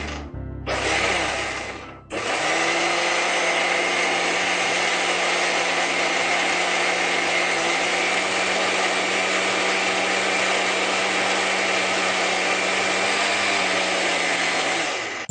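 Electric mixer grinder grinding a wet paste in its steel jar. It is pulsed twice briefly, then runs steadily for about thirteen seconds and stops near the end.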